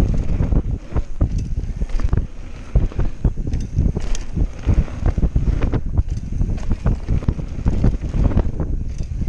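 Wind buffeting the action-camera microphone over the running noise of a Canyon Spectral full-suspension mountain bike descending a loose gravel trail at speed, with frequent sharp rattles and knocks from the bike as it rolls over stones and bumps.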